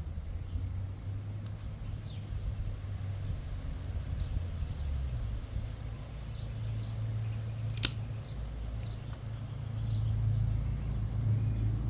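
Small campfire giving two sharp pops, about a second and a half in and just before eight seconds, over a low steady rumble that grows louder near the end.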